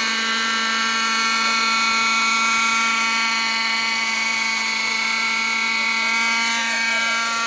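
Nitro (glow-fuel) engine and rotors of a radio-controlled model helicopter hovering, a steady high-pitched whine. The pitch dips a little about six seconds in.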